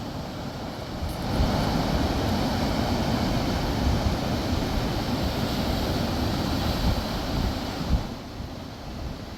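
Wind buffeting the microphone. A louder, even rushing noise swells up about a second in and falls away near the end.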